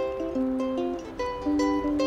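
Background music: a solo ukulele improvising in C, plucked notes and chords ringing and changing every fraction of a second.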